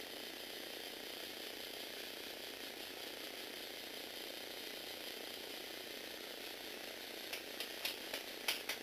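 Lego Technic 8043 motorized excavator's Power Functions electric motors and plastic gear trains whirring steadily as the machine runs, with a series of sharp clicks near the end.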